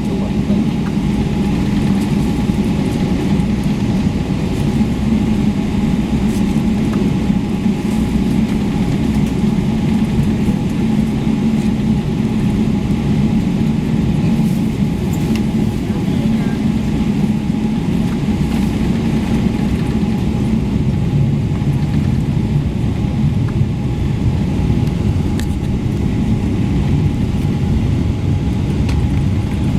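Cabin noise inside a Boeing 777-300ER on the ground before takeoff: a steady low drone from its GE90 engines and cabin air system, with a faint steady whine above it.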